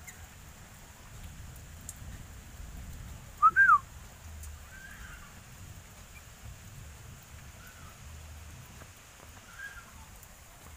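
Sooty-headed bulbul (kutilang) giving one loud, quick two-note call about three and a half seconds in, followed by a few much softer short calls.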